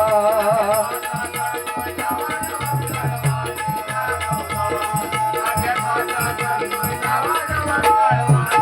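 Devotional song accompaniment: a held sung note with vibrato fades in the first second, then an instrumental interlude continues with a steady jingling rattle and regular drum beats under sustained melody tones.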